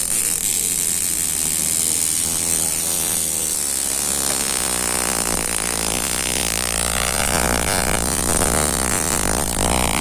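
High-voltage sparking inside a CRT television as it runs: a steady buzzing crackle with a high hiss, the arcing fault the set was brought in for.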